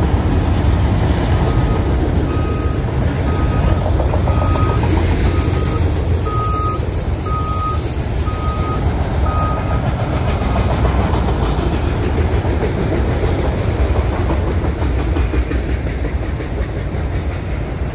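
Freight train of autorack cars rolling past, a steady rumble of steel wheels on rail. Through the first half, a series of about nine short beeps, about one a second, then they stop.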